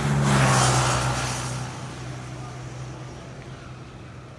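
A motor vehicle's engine with a steady low hum and hiss, loudest in the first second and a half, then fading away.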